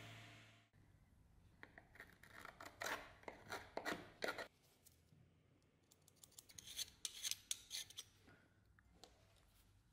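A belt sander runs briefly and cuts off under a second in. Then faint, short scraping strokes of hand metalworking on a thin steel guard plate, a steel scriber marking it out and a file working its edge, in two bunches separated by a short pause.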